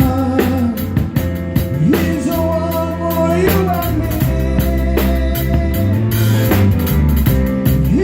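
A small rock band playing: a drum kit keeping a steady beat with cymbals, bass and guitar, with a voice singing and sliding between notes in the first half.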